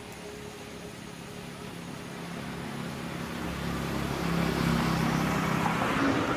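A motor vehicle's engine draws closer, growing steadily louder from about two seconds in, is loudest around four to six seconds in, and begins to fade near the end as it passes.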